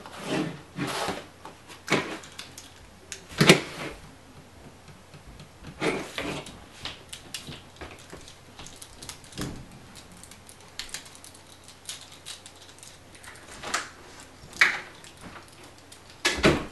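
Plastic clicks, snaps and knocks of a Terrorcon Cliffjumper Transformers toy being transformed by hand, as parts are twisted and clicked into place. The sounds are irregular, with louder snaps about three and a half seconds in, near fifteen seconds, and near the end.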